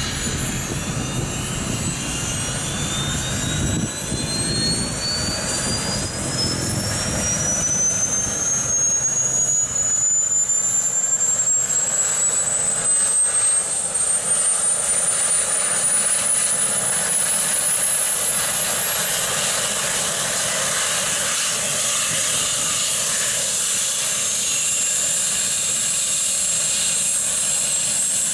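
Eurocopter AS355N Ecureuil's turboshaft engine starting up: a high turbine whine rising steadily in pitch over about twenty seconds as it spools up, growing louder, with a second rising whine joining near the end.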